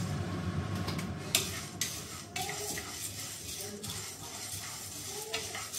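A wooden spatula stirring chana dal as it dry-roasts in a non-stick pan: the dry lentils rattle and scrape against the pan, with a few sharp clicks, over a low steady hum.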